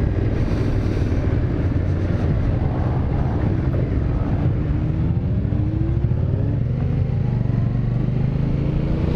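Aprilia Caponord 1200 Rally's V-twin engine running under way, its pitch rising twice as the bike accelerates, over a steady rush of wind on a helmet-mounted camera.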